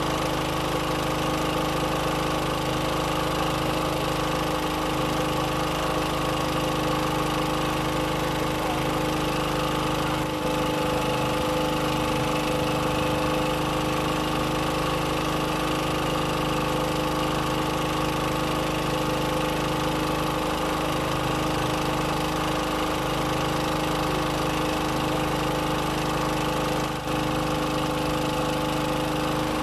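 Boat engine running steadily at an even, unchanging speed.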